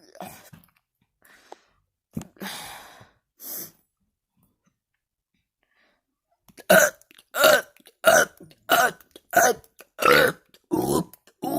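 A man's voluntary burps: after a couple of faint breaths and a pause of a few seconds, a string of about eight short, loud burps in quick succession, roughly one and a half a second.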